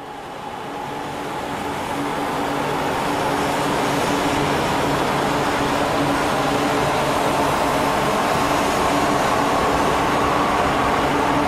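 E4 series Max double-decker Shinkansen moving along the platform: a steady rush of running noise with a whine from its traction motors that rises slightly in pitch in the second half.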